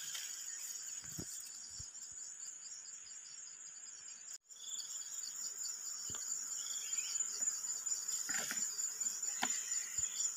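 A steady, high-pitched insect trill with a fast pulse, like crickets, fills the background and drops out for a moment about four seconds in. A few soft knocks and short high chirps sit over it.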